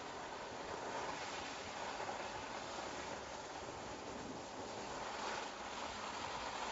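Mercedes-Benz E-Class All-Terrain driving along a snowy track: a steady rushing noise of tyres and running gear, with no distinct engine note.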